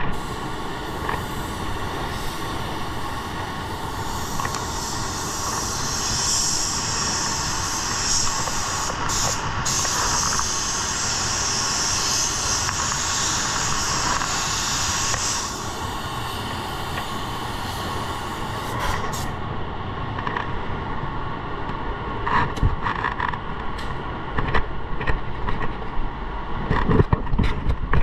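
Paint spray booth airflow rushing steadily, with a spray gun's air hiss from about four seconds in until about fifteen seconds, when the trigger is released. A few knocks near the end.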